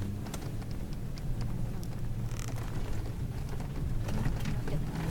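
Four-wheel-drive SUV's engine running steadily, heard from inside the cabin while driving over desert sand dunes, with scattered clicks and rattles.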